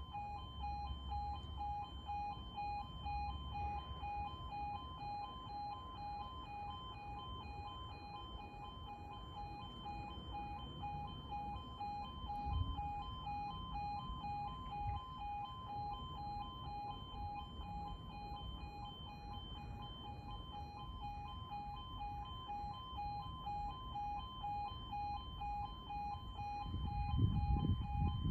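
Level crossing two-tone alarm sounding continuously, alternating rapidly between two pitches while the barriers are down. A low rumble builds near the end.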